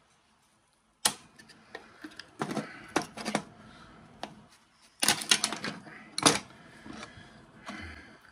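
Plastic clicks, snaps and rattles as a small plastic housing, the battery holder of a cordless circular saw's laser guide, is pried and unscrewed apart with a small screwdriver. A sharp click comes about a second in, then bursts of rattling clicks in two groups.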